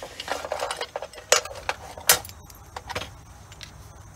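Metal parts and hand tools clinking and rattling: a scratchy clatter at first, then a few sharp metallic clinks spread over the next couple of seconds.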